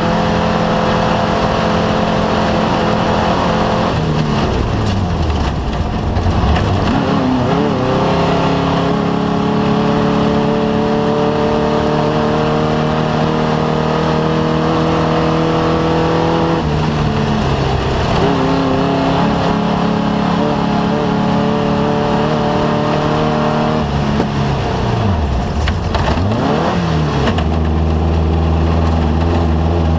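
Off-road race vehicle's engine running hard. Its pitch climbs slowly as it accelerates and drops sharply a few times as it shifts gear or slows, over a steady rush of noise.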